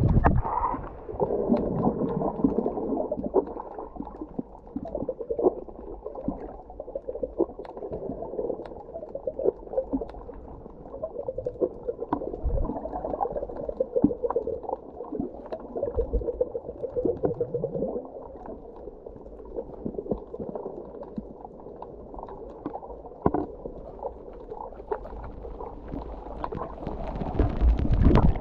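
Muffled underwater sound picked up by a submerged camera: a low rush of water with scattered clicks and crackles and an occasional gurgling swirl, swelling near the end.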